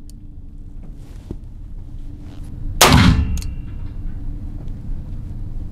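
A single shot from a revolver chambered in .460 S&W Magnum, fired with a milder .45 Long Colt cartridge, about three seconds in, with a short echo of the indoor range after it.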